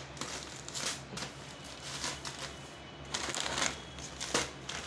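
Plastic grocery packaging rustling and crinkling as packets are taken out of a plastic bag and handled, with a denser burst of crinkling about three seconds in.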